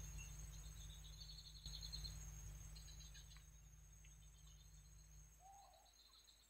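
Faint insect chorus: a steady high cricket trill with repeated bursts of high chirping. Under it a low hum fades out near the end.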